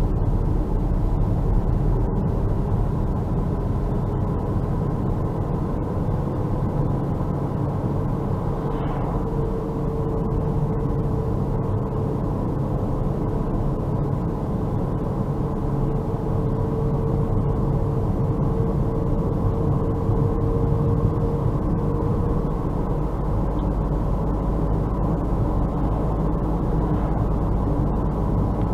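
Steady road and tyre noise from a car driving on a snow-covered road, heard from inside the cabin, with a faint whine in the middle part.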